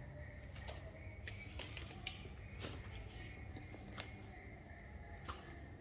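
Faint scattered clicks and light knocks, about half a dozen, over a low steady rumble and a faint steady high hum.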